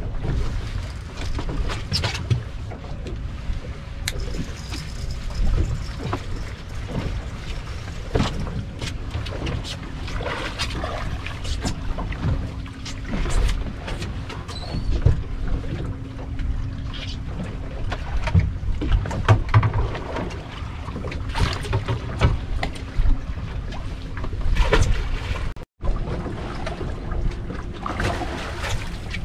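Wind buffeting the microphone on a small fishing boat in storm weather, a steady low rumble, with scattered knocks and clatter from gear on the boat.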